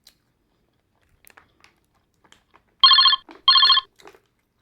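A telephone ringing: two short trilling rings, each about half a second long, a fraction of a second apart. A few faint clicks come before the rings.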